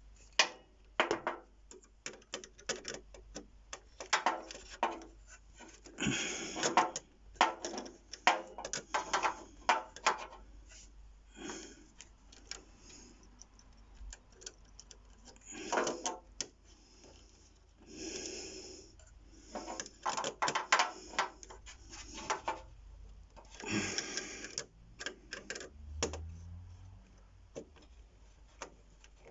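Irregular clicks, taps and rustling of hands working cables and plug-in connectors into the back of a power amplifier.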